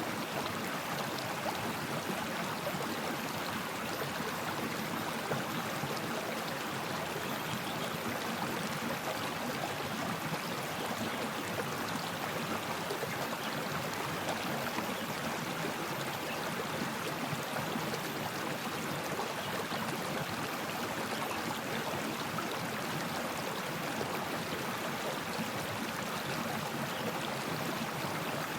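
Stream water flowing steadily over rocks, a continuous rushing and burbling with no breaks.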